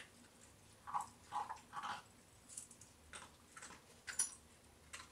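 Small dog crunching dry kibble taken from the hand: a few short, faint crunches about one to two seconds in, with one sharp click about four seconds in.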